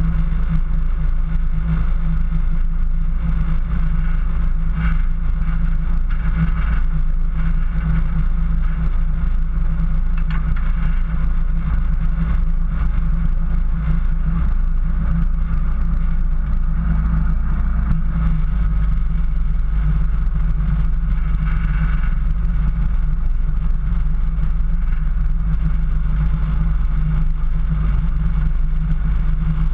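Off-road 4x4 driving steadily over snow: a constant low engine and drivetrain drone with tyre noise, picked up by a camera mounted on the hood.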